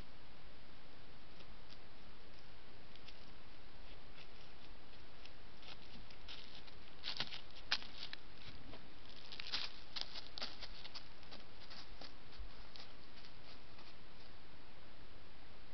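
Dry leaf litter rustling and crackling in quick, irregular clicks as an animal moves right by the trail camera, busiest from about six to twelve seconds in. The camera's own steady hiss runs underneath.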